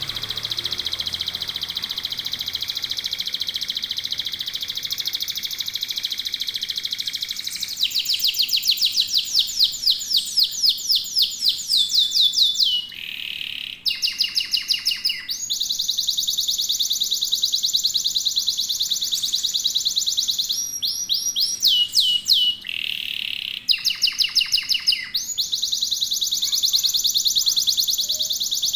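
Domestic canary singing a long unbroken song of high, fast trills and rolls, changing phrase briefly twice along the way.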